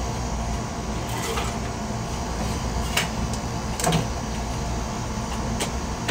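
Steady low hum of restaurant kitchen equipment, with a few sharp clicks and knocks of plastic cups being handled and set down on a steel counter at a drink station.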